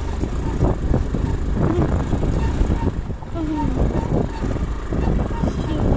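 Motorcycle riding over a rough, rocky dirt track: the engine runs steadily under a dense rumble of tyre and road noise, with frequent short knocks and rattles from the bumps.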